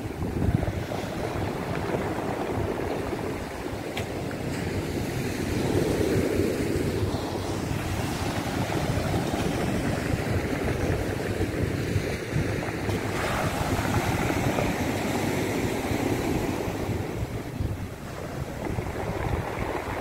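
Sea waves breaking and washing over a pebble beach, in rising and falling surges that swell louder about six seconds in and again later, with wind on the microphone.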